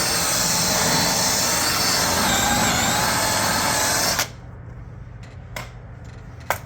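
Electric drill spinning a foam buff ball against a metal threshold to polish it, running steadily, then stopping about four seconds in, leaving a low hum and a couple of faint clicks.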